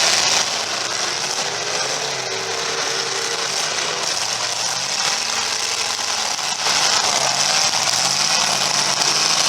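Demolition derby cars' engines running and revving, with pitch rising and falling under a steady noisy bed. The sound gets louder about two-thirds of the way through.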